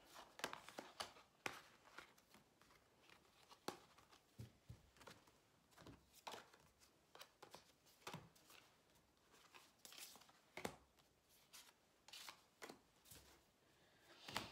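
Faint, irregular rustles and taps of tarot cards being picked up from a spread and stacked into decks.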